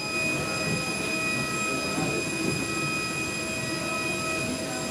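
Steady rumbling hum with a high whine held level over it: the running noise of a transport vehicle.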